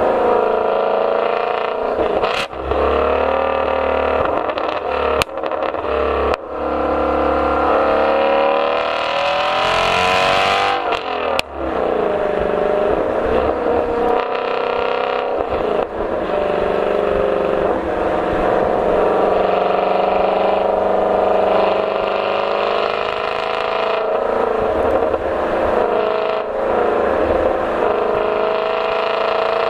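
Ford Mustang Shelby GT350R's 5.2-litre flat-plane-crank V8 driven hard, its pitch climbing and dropping with throttle and gear changes, with one long run up in revs that breaks off sharply about eleven seconds in. A few sharp cracks stand out over the engine.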